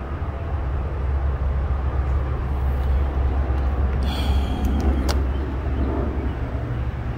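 Steady low outdoor rumble with an even background hiss, and a couple of faint clicks about four and five seconds in.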